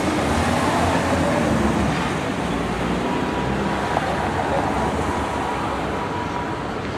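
Steady street traffic noise, fading slightly, with a faint thin steady whine from about three seconds in until near the end.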